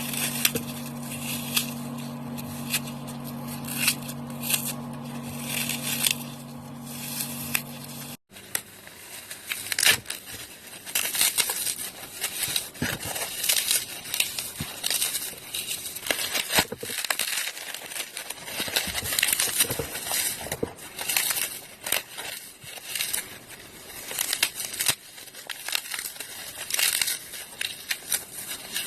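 Dry floral foam being crushed, a dense run of crunchy, crackling snaps. A steady low hum runs underneath for the first eight seconds or so and stops at a sudden cut.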